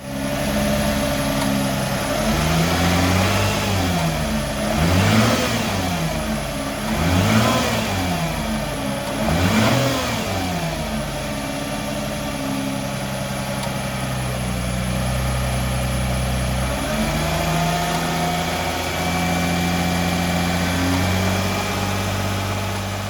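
Nissan GT-R (R35)'s twin-turbo V6 revved in several short blips during the first ten seconds or so, then idling steadily.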